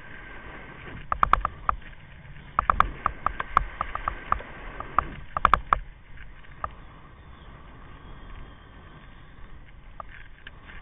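Kite buggy rattling and knocking in quick clusters as it rolls over the sand, over a steady wind noise. The knocks stop about six seconds in, leaving mostly the wind.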